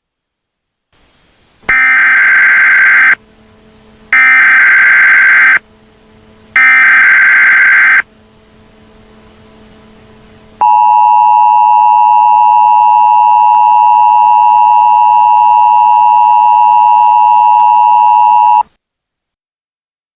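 Emergency Alert System tones: three short bursts of warbling SAME header data, then the steady two-tone EAS attention signal held for about eight seconds before it cuts off sharply.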